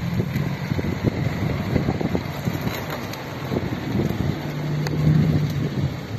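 Suzuki Vitara 4x4's engine running under load as it crawls slowly over a rutted dirt trail. The engine note steadies and grows louder about five seconds in, as the vehicle passes close by.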